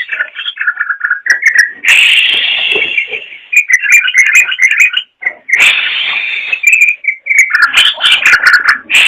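Yellow-vented bulbul (trucukan) singing in continuous loud bursts. It runs quick, bubbly chirped notes together with harsh, rasping phrases about every three to four seconds.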